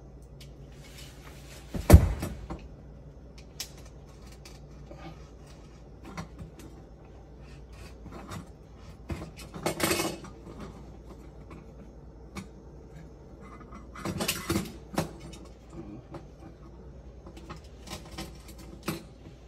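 Handling noises from hands working with tools and small parts: a sharp knock about two seconds in, then scattered clicks and rustling that pick up near ten and again near fourteen seconds, over a low steady hum.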